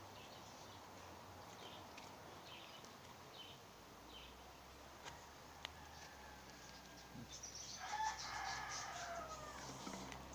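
A rooster crowing once near the end, a single call of about a second and a half that falls in pitch as it ends, with faint high chirps before it.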